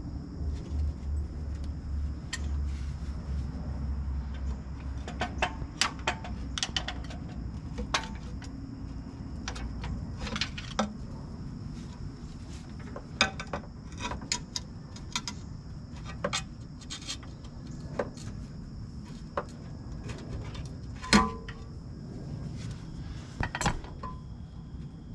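Irregular metallic clinks and taps of hand tools and loose parts handled on an engine, a few loud sharp ones among many softer ones. A low hum runs under the first few seconds and stops.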